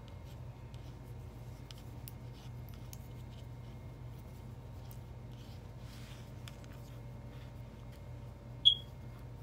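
Faint scattered clicks of knitting needles as stitches are knitted, over a steady low hum. Near the end, a single short high-pitched beep.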